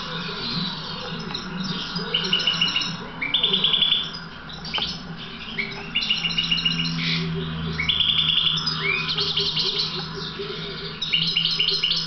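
European goldfinch of the Balkan subspecies (Carduelis carduelis balcanica), a song-trained cage bird, singing: quick twittering phrases broken by several runs of rapidly repeated buzzy notes.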